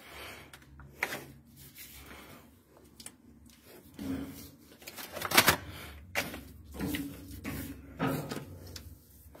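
Hands working inside a PVC window welding machine, smoothing the teflon sheet on the heating plate: an irregular run of knocks, clicks and rubbing against the hoses and metal frame, the sharpest knock about halfway through.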